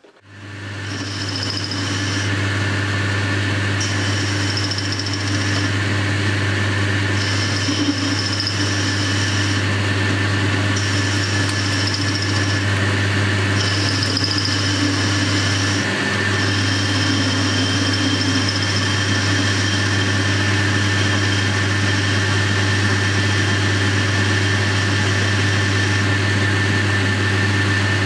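Boxford metal lathe running, coming up to speed over the first couple of seconds and then holding a steady hum, while a tool fed by the compound slide cuts a 45-degree chamfer on the end of a steel bar. A high hiss comes and goes in spells of a second or two.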